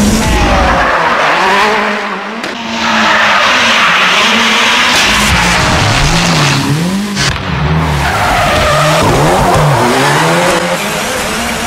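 Ford Fiesta rally car's turbocharged four-cylinder engine revving up and down in quick, repeated swings while the car drifts, over the rough hiss of tyres skidding and squealing on tarmac.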